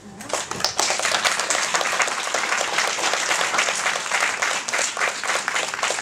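Audience applauding, breaking out suddenly and holding steady.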